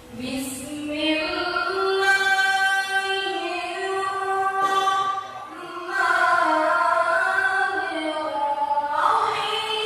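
A woman reciting the Qur'an in a melodious chanted style (tilawah): long drawn-out notes with ornamented turns in pitch. She takes a short breath about halfway through, and the next phrase climbs higher near the end.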